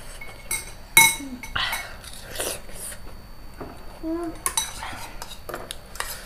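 Metal forks clinking and scraping against ceramic plates while eating noodles: a series of short clinks, the loudest a ringing one about a second in.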